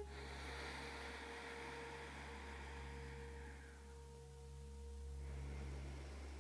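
Quiet room sound: a low steady hum with a faint held tone over it that stops about five seconds in, and a soft long exhale fading out over the first three seconds.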